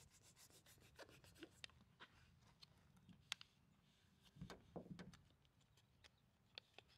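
Faint crackling and rubbing of an adhesive protector film as its backing is slowly peeled and fingers press the film down over a door handle. There are scattered small ticks, and the rubbing is a little louder about two thirds of the way through.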